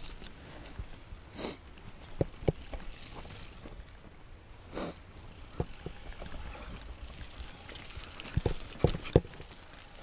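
Mountain bike rolling down a dirt forest trail, with a low steady rumble and sharp knocks and clatters as the bike hits bumps: a pair about two seconds in, one more mid-way and a cluster of three near the end, along with a couple of short hissing swells.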